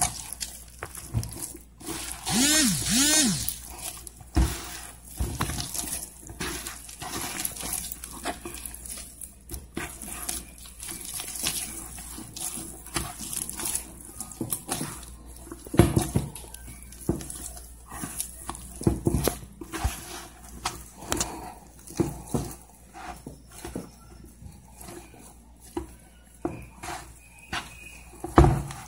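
Hands kneading sticky polvilho cheese-biscuit dough: irregular wet squelches and small clicks. Two short rising-and-falling squeaks about two to three seconds in are the loudest sounds.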